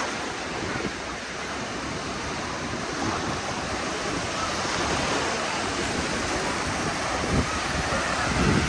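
Surf washing onto the beach as a steady hiss, with wind buffeting the microphone.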